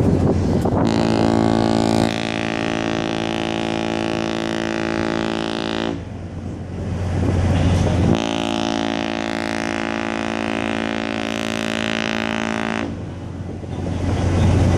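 Cruise ship horns sounding: two long, deep, many-toned blasts of about five seconds each, the first starting about a second in and the second about eight seconds in, over a steady deep low tone.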